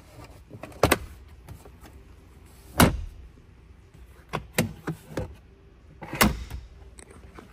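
Plastic compartment lids and latches in a pickup truck's cabin being opened and closed, making about six sharp clicks and knocks. The loudest come about three seconds in and about six seconds in.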